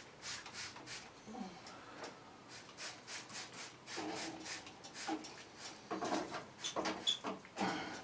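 Scattered light rubbing, scuffing and clicking of things being handled.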